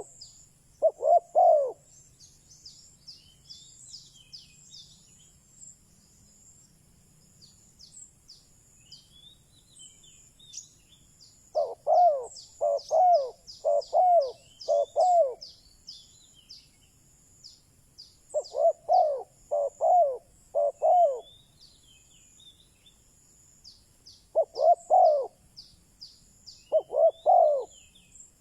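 Spotted dove cooing: phrases of two to five low coos repeated every few seconds, a decoy call meant to draw in wild doves. Small birds chirp high and thin in the background throughout.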